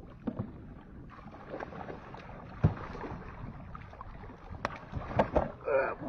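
A wooden club striking at a large fish thrashing in the water beside a small boat: several sharp knocks and splashes, the loudest about two and a half seconds in, over steady wind and water noise on the microphone.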